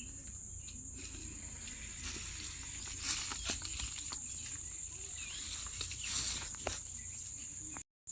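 Steady high-pitched insect drone, with rustling and crackling growing from about a second in. The sound cuts out briefly just before the end.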